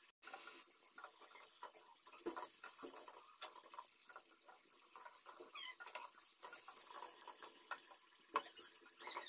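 Pakoras deep-frying in hot oil in a karahi, a faint, steady crackle and sizzle, with a few louder ticks as a wooden spatula turns them.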